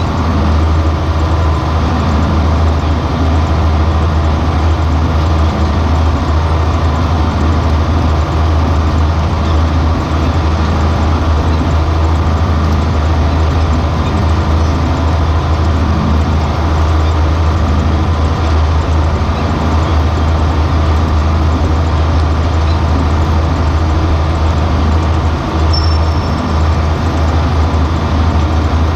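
John Deere 4440 tractor's turbocharged six-cylinder diesel engine running at a steady speed under load, pulling a planter; a constant low drone with no change in pace.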